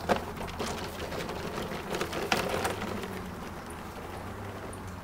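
Footsteps crunching on dry dirt, roots and twigs with a few sharp clicks, growing fainter as the walker moves away, over a steady low background hum. The mower is not yet running.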